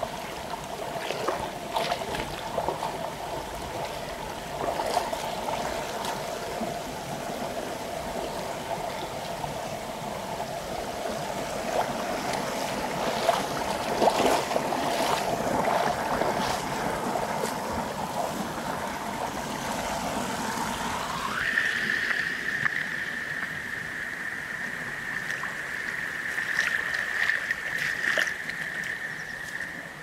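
Shallow mountain stream rushing and gurgling over rock and moss-covered stones, with small splashes throughout. A steady tone runs alongside it and jumps higher in pitch about two-thirds of the way through.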